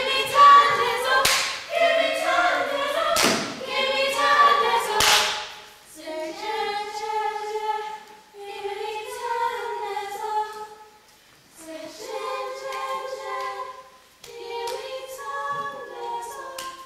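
A group of voices singing together, unaccompanied. For the first five seconds a few loud thuds land on the beat, and after that the singing goes on alone in phrases with short breaks between them.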